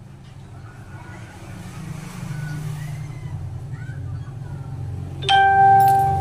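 A motor vehicle engine rumbling in the background, with a single loud horn-like tone about five seconds in that lasts about a second.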